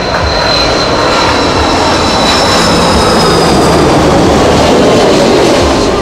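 Jet airliner engines, loud, with a high whine that slowly falls in pitch.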